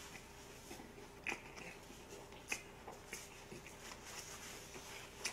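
Close-miked chewing of a mouthful of pork belly wrapped in lettuce (ssam): faint wet crunches and mouth clicks scattered through, the sharpest about a second in and again about two and a half seconds in.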